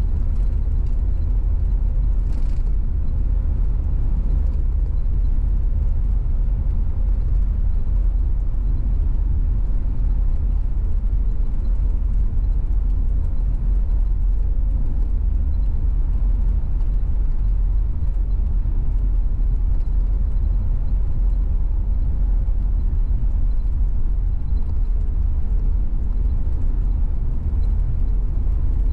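Car driving along, a steady low road-and-engine rumble with no change in pace.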